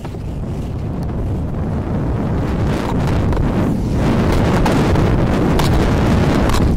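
Wind rushing over the microphone of a skier's point-of-view camera during a fast downhill run through snow. It grows steadily louder as speed builds, with a few short clicks in the second half.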